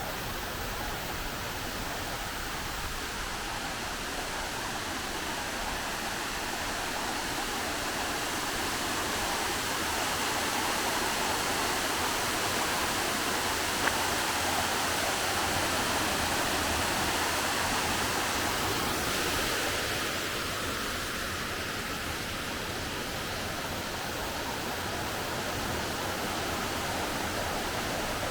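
Rushing water of a forest stream, a steady hiss that swells toward the middle and eases a little after about twenty seconds, with one short click about halfway through.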